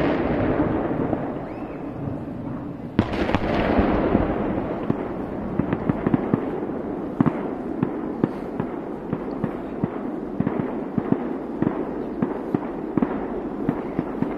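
Fireworks display: a loud aerial shell burst right at the start and another about three seconds in, each followed by a rolling echo, then a long run of sharp, irregular crackling pops.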